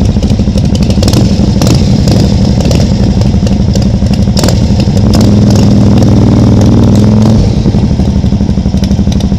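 Can-Am Spyder three-wheeler's V-twin engine running at low speed in a close, pulsing drone. About halfway through it picks up revs, then eases back a couple of seconds later.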